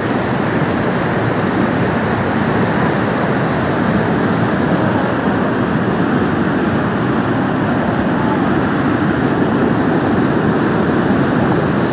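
Mudflow of thick muddy water and debris surging past, a loud, steady rushing noise.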